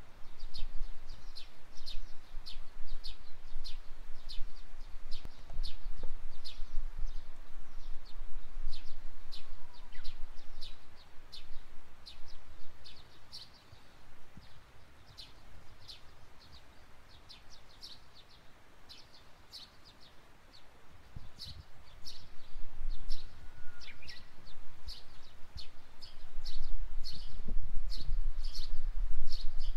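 Wild birds chirping, a stream of short high notes a fraction of a second apart, with a few faint sliding whistles. Under them a low rumble comes and goes, dying down in the middle and swelling again near the end.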